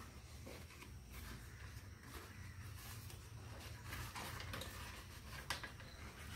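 Faint rustling and crinkling of jackfruit leaves as they are folded into a leaf cup and pinned with a thin stick, with one sharp tick about five and a half seconds in.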